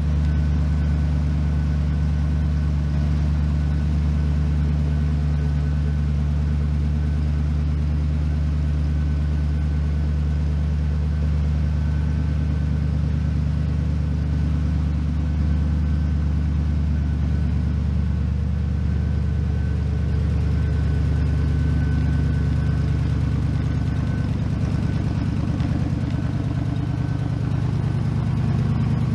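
A 1957 Ford panel van's engine, with dual exhausts, idling steadily at a low, even pitch.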